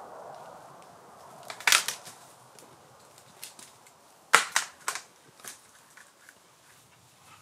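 Sharp cracks and snaps at irregular intervals, the loudest about one and a half and four and a half seconds in, with a few lighter snaps after.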